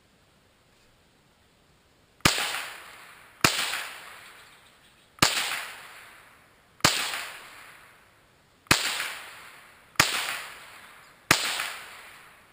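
Seven shots from a Marlin 795 semi-automatic .22 LR rifle, fired one after another about one to two seconds apart, each sharp crack followed by a long echo dying away.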